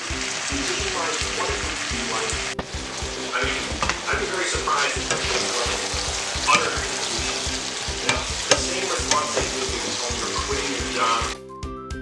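Eggplant, broccoli and onion sizzling as they are stir-fried in a non-stick pan, with repeated scrapes and tosses of a spatula, over background music with a steady beat. About eleven seconds in the sizzling stops and only the music carries on.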